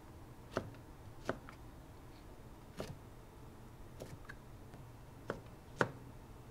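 Kitchen knife striking a cutting board, about six sharp, irregularly spaced chops, the loudest near the end.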